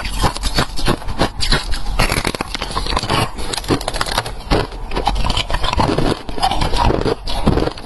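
Ice being bitten and chewed close to the microphone, a dense run of crisp crunches and cracks.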